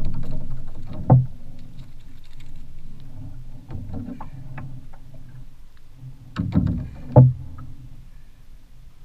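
Water lapping against a small fibreglass skiff's hull, with sharp knocks against the boat about a second in and a few more between six and seven seconds, the loudest near seven seconds.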